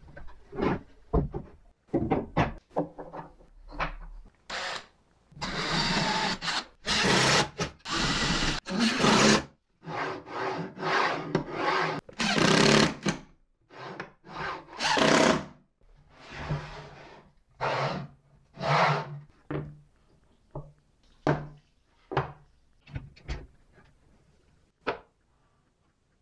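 Hands handling and sliding the wooden parts of a homemade angle-grinder sliding stand on a workbench: rubbing and sliding scrapes, some lasting a second or two, as the plywood carriage runs along its steel guide rods, with scattered light knocks of wood. The grinder is not running.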